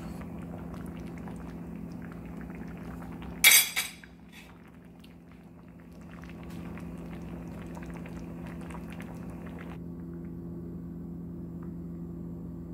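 Creamy chicken-and-poblano sauce simmering and bubbling in a stainless pan over a steady low hum. A spoon knocks loudly against the pan about three and a half seconds in, and the bubbling fades out a few seconds before the end.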